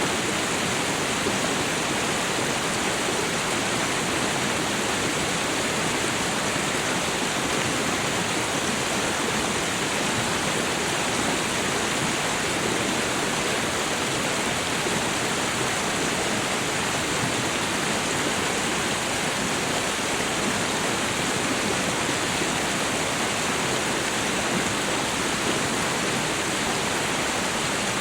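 Waterfall: water falling in a steady, even rush that does not change.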